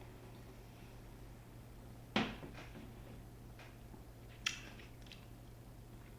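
Two sharp knocks, about two and a half seconds apart, with a few faint ticks between them, over a low steady hum.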